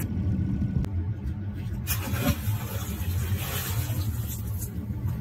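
Suzuki outboard motor running steadily at low speed. About two seconds in, a weighted rope and net splash into the river, and the water hisses and churns for two or three seconds.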